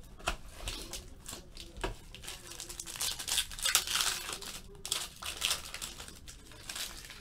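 Foil trading-card pack being torn open and its wrapper crinkled by hand: a run of irregular crackles and rustles, busiest in the middle.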